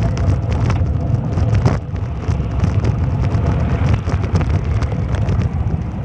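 Wind buffeting the phone's microphone during a ride in an open vehicle: a loud, steady low rumble with small crackles, over vehicle noise.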